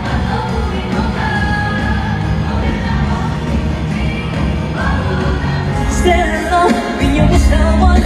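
Live pop song played over a stadium sound system, with a high male voice singing over the band. About six seconds in, the music switches to a heavier beat with strong bass.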